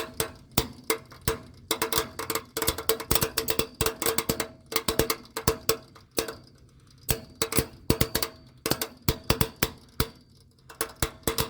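Compressor contactor in an air-conditioner condensing unit chattering: rapid, irregular clicking as the contacts pull in and drop out, over a steady hum, with a couple of short pauses. It is the sign of intermittent low 24 V control voltage.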